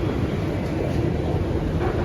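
Steady low rumbling background noise, with faint voices underneath.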